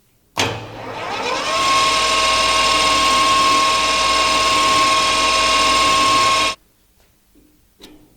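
Electric power tool motor spinning up, rising in pitch for about a second, then running at a steady high whine before cutting off abruptly.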